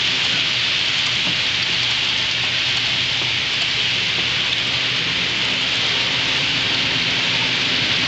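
HO-scale model freight cars rolling past on the track, a steady rushing hiss of wheels on rail with a faint low hum underneath.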